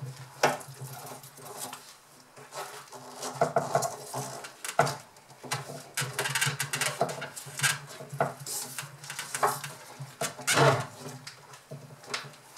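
Hands working loose the knots in a hoisting line at a window sill: irregular rustling, scraping and light clinks, over a steady low hum.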